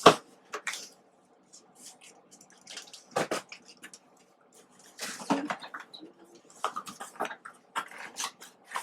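Cardboard shipping box and its packing material being handled and opened by hand: a sharp knock at the start, then scattered rustling, crinkling and tapping in short bursts.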